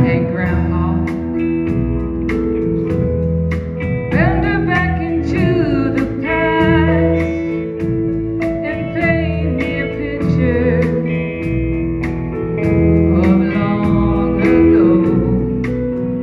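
Live country band playing: electric guitars, bass, keyboard and drums, with a lead melody line that bends and wavers in pitch.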